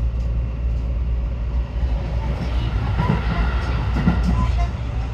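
JR commuter train running, heard from inside the passenger carriage: a steady low rumble from the running gear on the rails, with a few fainter higher tones about three to four seconds in.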